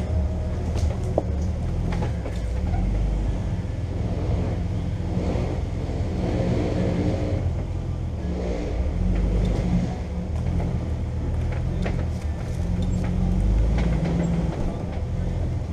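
Jeep Wrangler's engine running steadily at low speed as it crawls along a dirt trail, with occasional short knocks and rattles from the vehicle over bumps.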